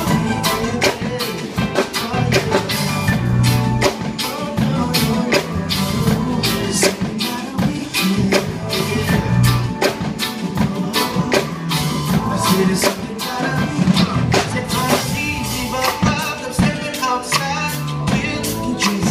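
Live reggae band playing through the stage PA: a drum kit keeps a steady beat under electric guitar, bass guitar and keyboards.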